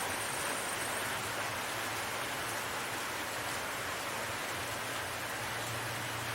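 Steady hiss of background noise, with a low hum that grows louder near the end.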